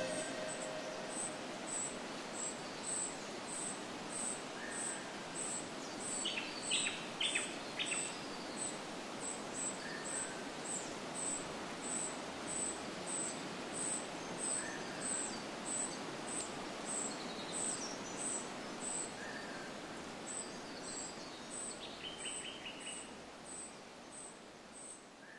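Summer woodland ambience: a high chirp repeating nearly twice a second over a soft steady hiss, with a few short runs of bird calls. It fades out near the end.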